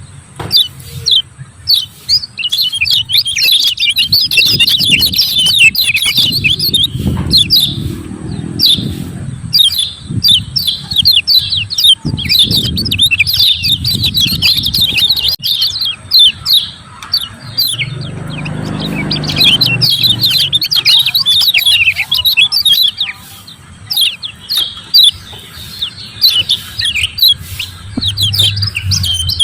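Lemon-bellied white-eye (kecial kuning) giving its rapid, chattering 'ciak ciak' calls in dense, high-pitched runs of chirps.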